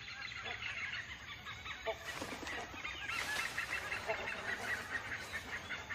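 Birds calling in the forest: many short overlapping calls, with a few short lower notes among them.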